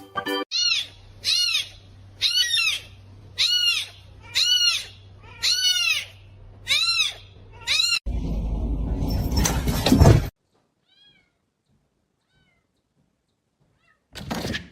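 A cat meowing over and over, about eight short rising-and-falling meows roughly a second apart. Then a loud rushing noise that stops abruptly.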